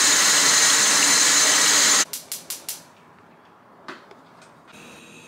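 Tap water running hard into a nonstick cooking pot at the sink, a loud rush that stops abruptly about two seconds in. A few quick clicks follow, and near the end the faint steady hiss of a lit gas stove burner.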